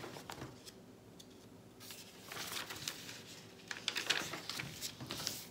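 Paper rustling with small clicks as a page of a thin paperback book is turned and the book is handled, busier from about two seconds in.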